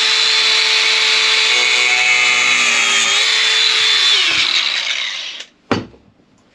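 Angle grinder spinning at full speed with a steady high whine, dipping slightly in pitch about three seconds in, then winding down with a falling pitch after about four seconds. A single sharp knock follows near the end.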